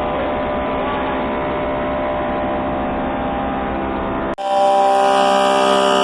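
An 18-inch Woodmaster thickness planer running with a steady mechanical drone. About four seconds in, an abrupt cut switches to a louder, higher whine with strong steady tones.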